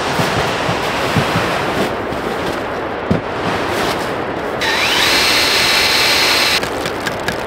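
Power drill boring a tap hole into a sugar maple trunk: the motor whine rises as it spins up, holds steady for about two seconds, and cuts off suddenly.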